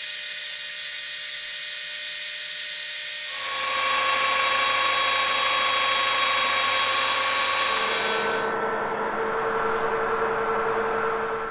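Metal lathe running with a brass workpiece spinning in the chuck, the part being worked with a hand tool and then with abrasive cloth held against it. The sound changes abruptly about three seconds in and again around eight seconds in, each section a steady machine whine with a different pitch.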